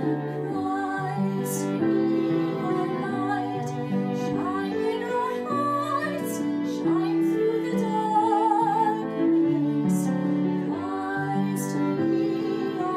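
A woman singing a hymn refrain, accompanied by grand piano and violin, at a slow, gentle tempo with held chords.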